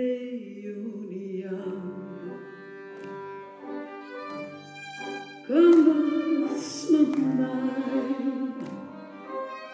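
A woman singing into a microphone, accompanied by a piano quintet of piano, two violins, viola and cello. About halfway through her voice comes in much louder over the strings.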